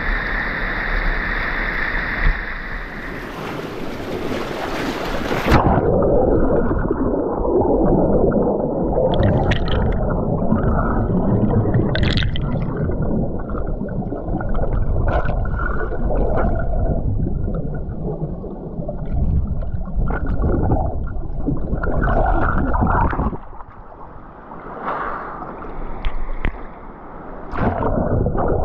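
Whitewater of a river rapid rushing. About five seconds in, the sound turns suddenly muffled and low as the microphone goes underwater: the current churning and gurgling, with brief crackles of bubbles.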